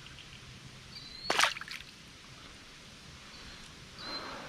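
Water sloshing and trickling around a kayak, with one sharp splash about a second in and a softer slosh near the end. A few faint, short high chirps sound over it.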